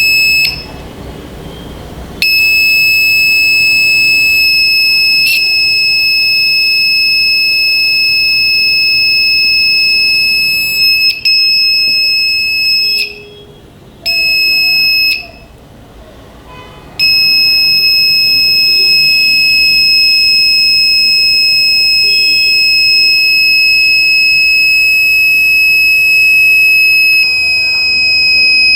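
A smoke detector kit's DC buzzer sounding a loud, steady, high-pitched alarm tone, signalling that smoke has been detected. After a brief blip at the start it holds on for about ten seconds, breaks off twice for a second or two around the middle, and then sounds on without a break.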